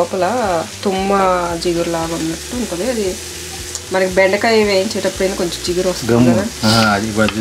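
Pieces of cactus sizzling as they are stir-fried in a pan, being cooked until their sticky slime is gone. Over the sizzle come several short pitched sounds that rise and fall.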